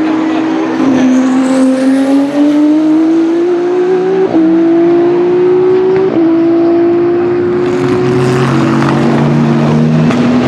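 Hypercar prototype race engine under hard acceleration, its note climbing steadily and dropping sharply at two upshifts, about four and six seconds in. Near the end the note changes and a second, lower engine note comes in.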